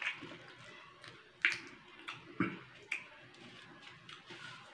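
Close-up chewing of a mouthful of food, with about five short crisp crunches and wet mouth smacks spread through the first three seconds.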